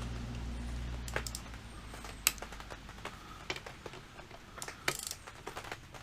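Irregular metallic clicks and ticks of hand tools working the rear brake caliper bolts. A low steady hum underneath fades out about a second and a half in.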